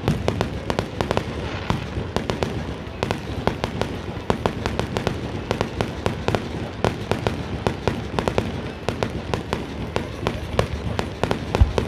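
Fireworks going off: a rapid, unbroken run of sharp pops and crackles from bursting shells.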